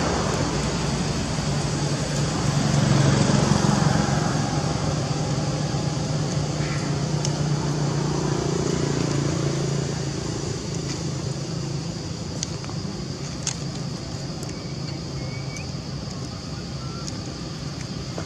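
A motor vehicle's engine humming low and steady, swelling about three seconds in and fading after about ten seconds, over a steady outdoor hiss. A few faint clicks come later.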